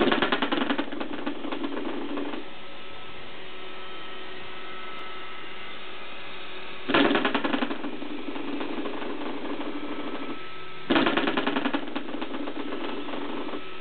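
Coiled-spring door stop flicked three times, at the start, about seven seconds in and about eleven seconds in. Each flick gives a buzzing twang that dies away over two to three seconds.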